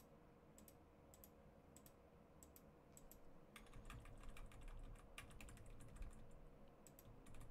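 Faint clicking of a computer keyboard and mouse, in scattered runs that come thickest in the second half, over near-silent room tone with a faint steady hum.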